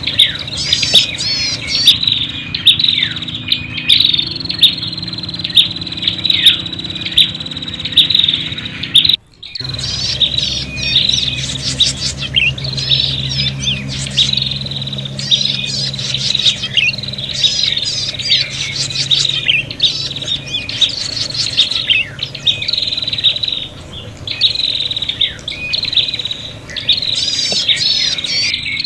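Prinias (prenjak) calling excitedly: rapid, repeated sharp chirps and fast trills, the agitated, fighting chatter used as a lure call. The calls break off for an instant about nine seconds in.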